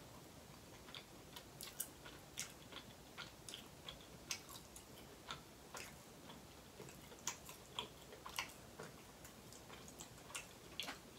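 Close-miked chewing of a chicken wing: faint, irregular mouth clicks, a couple a second.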